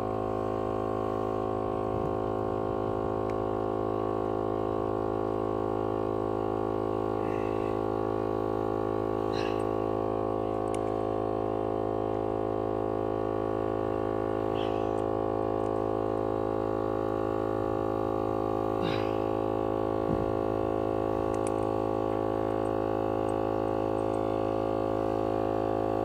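SuperFlow MV-50 12-volt portable air compressor running steadily, a continuous droning hum as it puts air into the tire being plugged. A few faint clicks sound over it.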